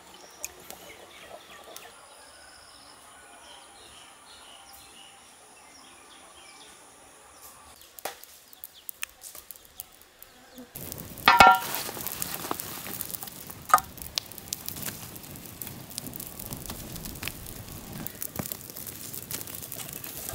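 Faint outdoor ambience with a few bird chirps. About halfway in, a wood fire starts crackling steadily, with dried fish roasting directly in the flames, and a sharp knock comes just after it starts.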